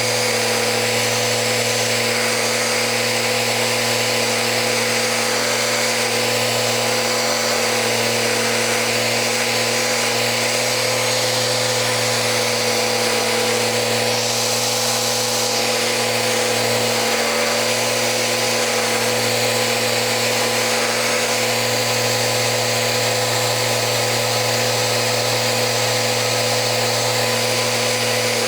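Festool RO 90 DX sander running steadily with a constant hum and whine, sanding the edge of a cocobolo board with 220-grit abrasive.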